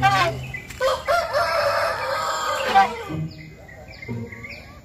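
An elephant trumpeting: one long call of about two seconds, starting about a second in.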